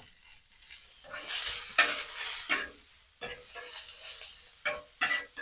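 Onions sizzling in oil on a very hot flat-top griddle, the hiss loudest between about one and three seconds in, with a utensil scraping and tapping the griddle several times.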